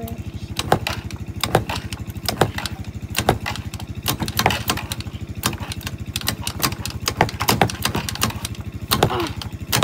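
ATV engine idling with a steady, even putter, while sharp clicks and knocks sound irregularly over it.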